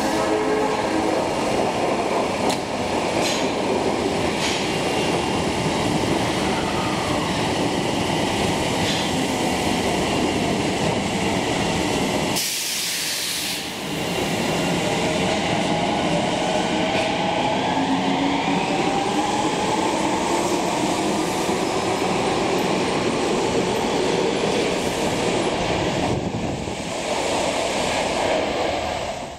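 Osaka Metro Tanimachi Line subway train running, its motor whine gliding in pitch over the steady rumble of the wheels. A short burst of hiss comes about 13 seconds in.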